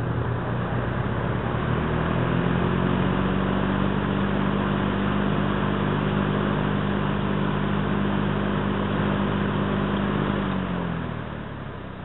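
Lakewood S-23 box fan running steadily, a motor hum under the rush of air from the blades. Near the end the hum falls in pitch and the whole sound fades as the fan slows down.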